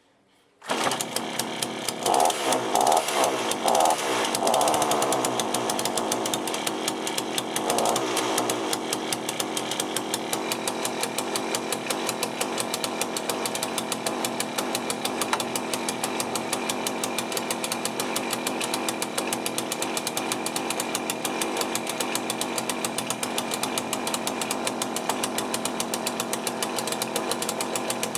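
Small two-stroke chainsaw engine catching about a second in and running, with a few short surges in the first few seconds, then settling into a steady run. It was hard to start, which the owner puts down to the low-speed mixture being maybe a bit too lean after the carburettor rebuild.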